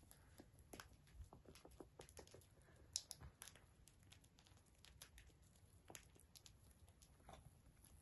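Near silence with faint, irregular light clicks and taps from cockatiels pecking and pattering about on carpet, one sharper click about three seconds in.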